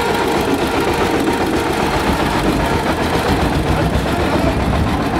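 Vintage Deutz tractor's diesel engine running steadily with rapid, even firing pulses as the tractor drives off slowly.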